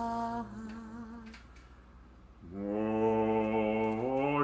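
Liturgical Hebrew chant: the last word of the Sabbath blessing, 'haShabbat', is sung and its final note held, then dies away. After a short lull a steady sustained note starts and steps up in pitch near the end.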